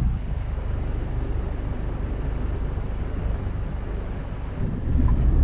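Wind rumbling on the microphone over the steady low running of a sailboat's inboard engine, swelling briefly near the end.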